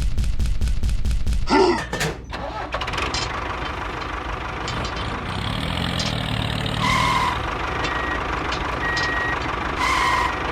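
A vehicle engine chugging in even beats, about four or five a second, then settling into a steady run. Twice near the end a short two-tone beep sounds over it, like a reversing or warning beeper.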